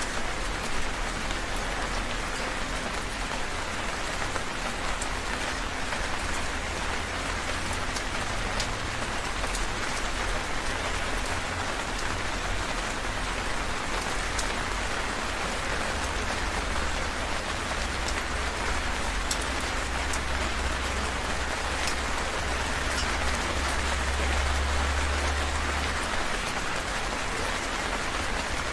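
Heavy rain falling steadily, a dense hiss of rain with individual drops ticking sharply on a surface and a low rumble underneath that is strongest in the second half.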